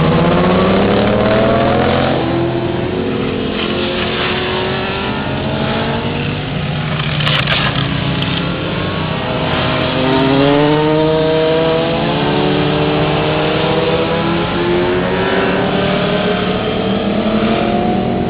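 Several sport motorcycles' engines revving hard as the bikes lean through a corner and accelerate away. Overlapping engine notes rise and fall with the throttle and gear changes, with a strong rising sweep at the start and another around the middle.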